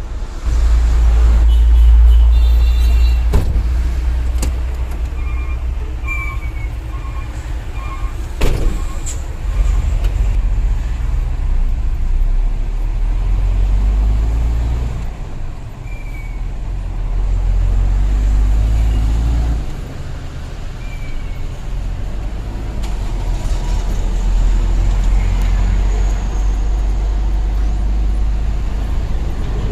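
Hino Ranger dump truck's diesel engine running with a deep, steady rumble that swells and eases a few times. Two sharp knocks come a few seconds in and again about eight seconds in.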